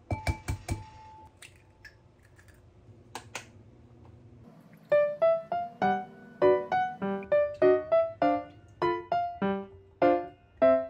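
An egg tapped sharply against the rim of a glass bowl several times, the glass ringing briefly. From about five seconds in, background keyboard music takes over, with piano-like notes at roughly two a second.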